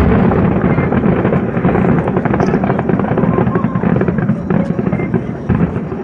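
Fireworks going off in rapid, dense succession: a continuous rumble of overlapping booms and crackle with no pause.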